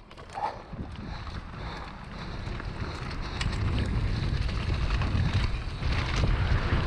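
Wind rushing over the camera microphone and mountain bike tyres rolling over a dirt trail, growing steadily louder as the bike picks up speed downhill, with occasional clicks and rattles from the bike.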